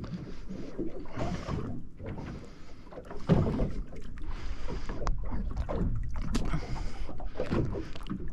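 Water lapping and slapping against the hull of a small fishing boat, coming in irregular surges, with a few light knocks.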